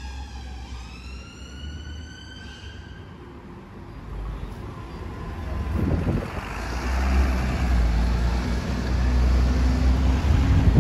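Double-decker buses driving past in street traffic, their engines rumbling low and growing louder as one passes close, about halfway in. In the first two and a half seconds a whine dips and then climbs steeply in pitch before cutting off.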